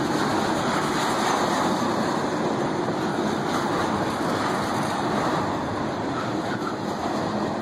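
Freight train's tank cars rolling past close by: a steady noise of steel wheels running on the rails.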